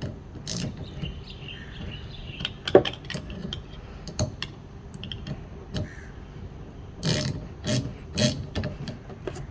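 Ratchet wrench clicking in short irregular runs as the 13 mm nut holding a rear wiper arm onto its spindle is tightened, with a few louder clicks about seven to eight seconds in.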